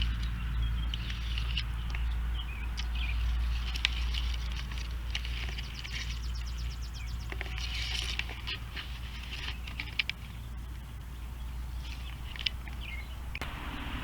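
Small birds chirping, with a rapid trill about five seconds in, over a steady low rumble.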